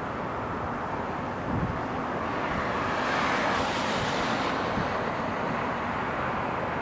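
Airbus A320 jet engines on final approach, a steady rushing drone that grows louder and brighter about three seconds in, with wind rumbling on the microphone and one brief gusty thump early on.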